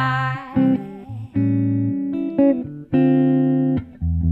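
Archtop jazz guitar playing the closing chords of a slow ballad, a handful of chords struck one after another and each left to ring. A woman's last sung note slides down and fades at the very start.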